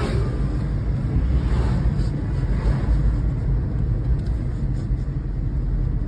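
Steady low road and engine rumble of a moving car, heard from inside its cabin.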